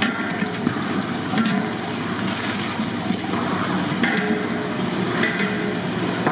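Dried red chillies and green chillies frying in hot oil in a large aluminium pot, a steady sizzle as a long-handled ladle stirs them, with a few knocks of the ladle against the pot.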